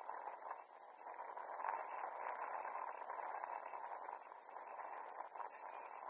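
Steady, muffled outdoor ambience at a football pitch, a hazy noise with no clear voices, and one brief louder sound about a second and a half in.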